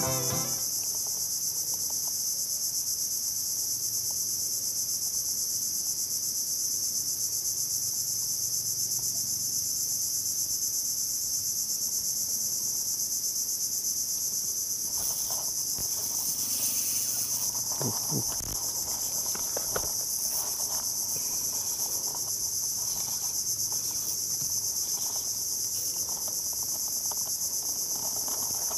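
Steady, high-pitched insect chorus of crickets. A few faint knocks and rustles come about halfway through.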